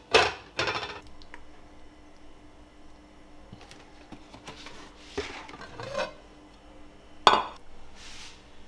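A ceramic plate set down over a glass mixing bowl as a cover, clinking twice at the start. Lighter kitchen clinks and knocks follow, with another sharp clink about seven seconds in.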